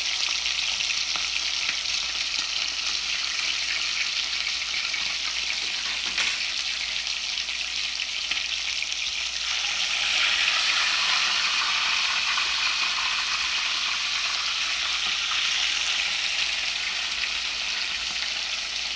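Chicken pieces frying hard in hot oil for brown stew chicken: a steady sizzle that grows louder about halfway through, with a single brief knock about six seconds in.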